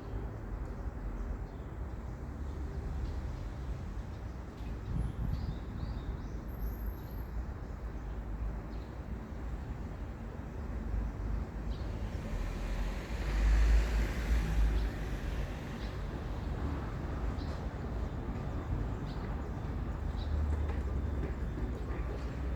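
Steady low outdoor rumble that swells about thirteen seconds in, with faint short high ticks now and then.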